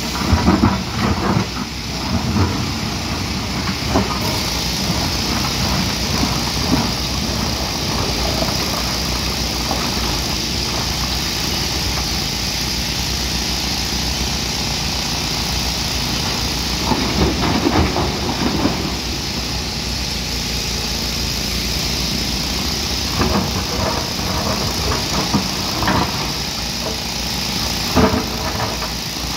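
Hyundai 215 hydraulic excavator's diesel engine running steadily while it works, with scattered clanks and knocks, a cluster of them about seventeen seconds in and more near the end.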